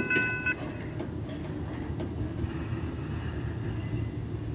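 Double-stack container freight train rolling away down the track with a steady low noise. A high, multi-tone squeal from the wheels cuts off about half a second in.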